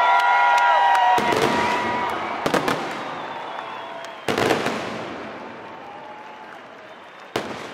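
Fireworks shells bursting: four sharp bangs spaced one to three seconds apart, each trailing off in a long echoing rumble. Steady tones fade out in the first two seconds.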